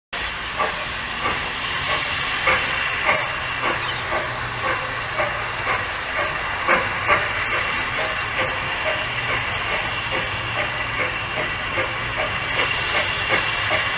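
Small steam tank locomotive, built at Brighton Works in 1875, hissing steadily as steam escapes around it, with soft beats a little under twice a second as it moves off slowly.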